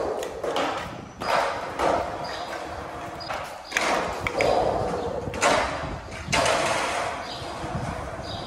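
A child's kick scooter rolling over a concrete skatepark floor, its small wheels rumbling, with irregular knocks and clatters.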